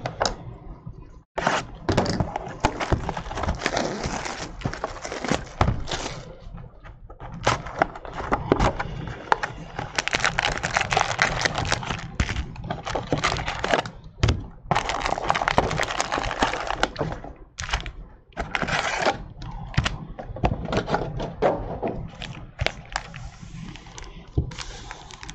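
Plastic shrink wrap crinkling and tearing as a sealed box of trading cards is opened, with clicks and knocks of the cardboard box and packs being handled, in several stretches of a few seconds.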